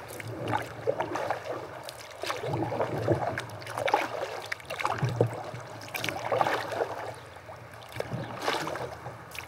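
Paddle strokes splashing and dripping in river water from a small paddled boat, with a few irregular light knocks.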